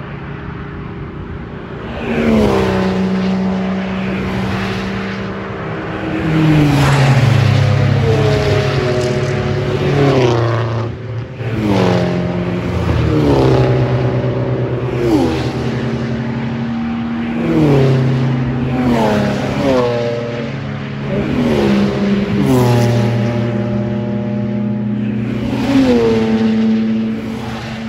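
A string of racing cars driving past one after another at formation-lap pace. Each engine note drops in pitch as its car goes by, with a new car arriving every two seconds or so.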